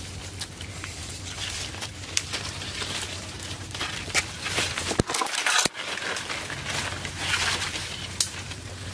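Dry branches and dead leaves rustling and crackling as bundles of sticks are carried and bare feet walk over dry leaf litter, with many small snaps and clicks.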